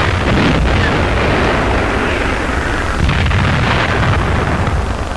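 Heavy artillery shells bursting in a continuous low, rumbling barrage on an old film soundtrack, under a steady hiss of film noise, with a louder surge about three seconds in.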